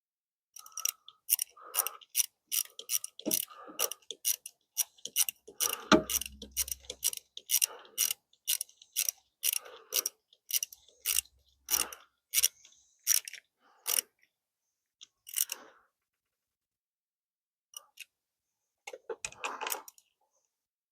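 Sharp mechanical clicks from hand work on the wiring install, two or three a second for most of the time, with a heavier knock about halfway through. They thin out to a few scattered clicks and a short rattle near the end.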